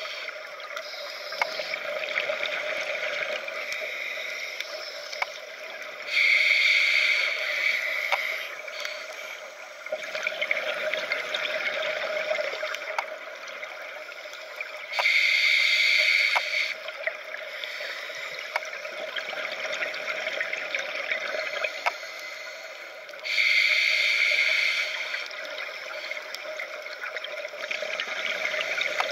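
Scuba regulator breathing underwater: quieter inhalations alternate with three loud rushes of exhaled bubbles, each about two seconds long and about eight to nine seconds apart. Scattered faint clicks run underneath.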